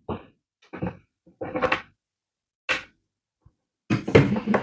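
Short knocks and rattles of a plastic blow dryer and its attachment being handled, in about five separate bursts with silence between, the last one the longest.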